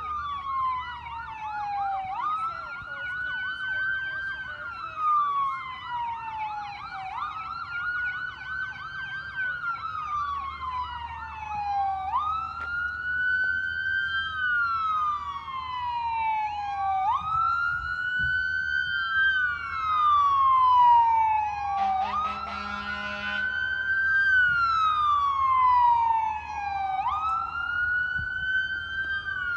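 Fire truck siren wailing in slow cycles, each a quick rise in pitch and then a long fall, repeating about every five seconds. For the first third a second, faster-sweeping siren overlaps it, and about two-thirds of the way in a horn sounds briefly.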